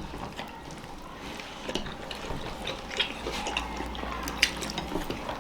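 Scattered light clicks of chopsticks against plates as people pick up and eat momos, with faint mouth sounds of eating.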